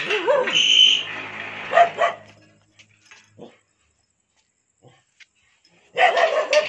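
Dog barking at penned goats: a run of barks over the first two seconds, a quiet pause, then barking again about six seconds in.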